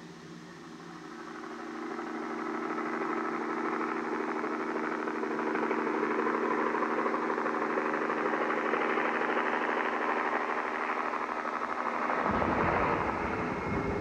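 Small crop-spraying helicopter flying low toward the microphone, its engine and rotor growing steadily louder. About twelve seconds in the sound cuts suddenly to a different low rumble.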